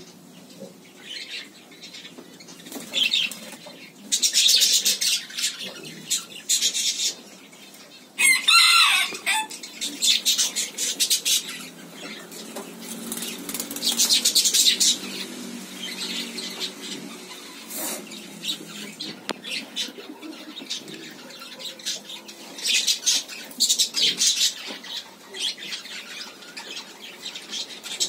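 Repeated bursts of bird wing flapping, with one loud bird call about eight seconds in.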